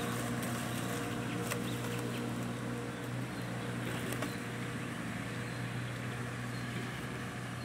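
Steady low mechanical hum over a constant background hiss, unchanging throughout.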